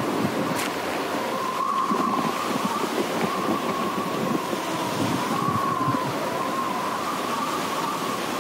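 Wind and rough sea around an aluminium sailboat in a storm: a steady rush of wind and breaking waves against the hull, with a high whistle wavering in pitch over it.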